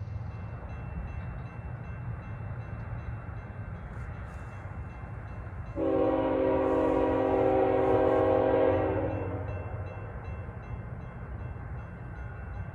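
Diesel locomotive horn sounding one long blast of about three and a half seconds, starting abruptly about six seconds in and fading out, over the steady low rumble of the train.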